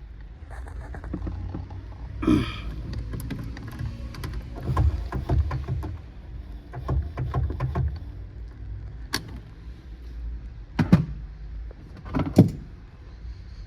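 Power rear liftgate of a 2016 Subaru Outback 3.6R working, over a low steady hum. A creak comes about two seconds in, then a run of clicks, then three sharp knocks toward the end.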